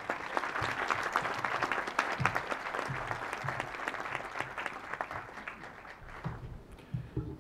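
Audience applauding: many people clapping densely, tapering off in the last second or so.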